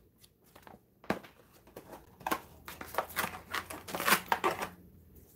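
Paper and card rustling with light taps and crinkles as a boxed tarot deck and its guidebook are handled and opened: a single click about a second in, then a busy run of irregular rustles that dies away near the end.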